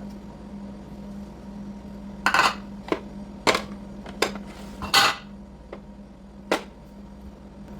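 Kitchen utensils and dishes clattering: about six short knocks and clinks in a few seconds, over a steady low hum.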